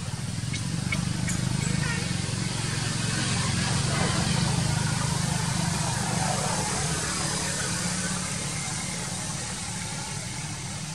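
A motor vehicle's engine idling with a steady low hum, growing a little louder toward the middle and easing off near the end.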